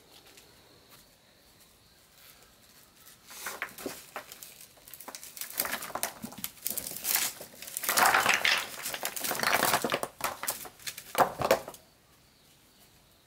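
Crinkling and rustling handling noise in irregular bursts with many sharp clicks, starting about three seconds in and stopping abruptly near the end.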